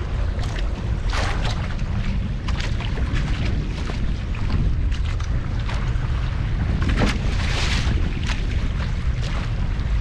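Small fishing boat at sea, with a steady low rumble of wind on the microphone and frequent short knocks and slaps against the hull.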